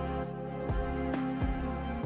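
Soft instrumental background music of the new-age kind: held chords with a few separate notes coming in during the second half.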